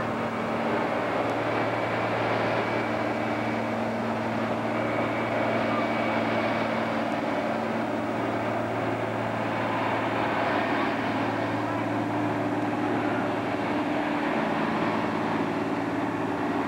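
John Deere diesel farm tractor pulling a sled under load, its engine note holding steady.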